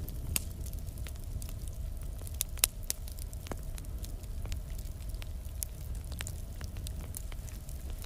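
Fire crackling over a steady low rumble of flames, with scattered sharp pops, the loudest about two and a half seconds in.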